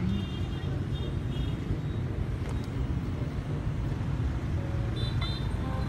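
Street traffic noise: a steady low rumble of passing motorbikes and cars, with faint high tones near the start and about five seconds in.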